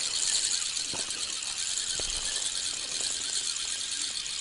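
Spinning reel being cranked steadily to wind in a hooked fish, a continuous high whirring hiss with a couple of faint clicks.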